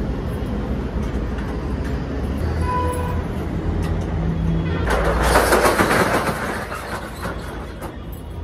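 Metal rolling shop shutter being unlocked and pushed up, with a loud rattling rush about five seconds in over a steady low background noise.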